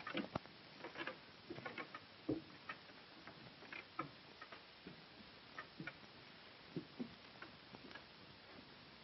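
Faint, irregular light knocks and clicks, some with a dull thud, scattered at uneven spacing over the steady hiss of an old film soundtrack.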